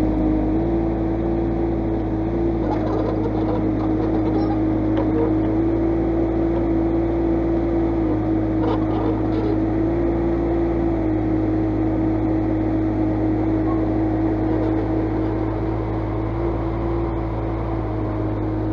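Sunward SWE18UB mini excavator's diesel engine and hydraulics running while it digs: a steady hum whose pitch steps up and down slightly as the hydraulics take load, with a few faint knocks.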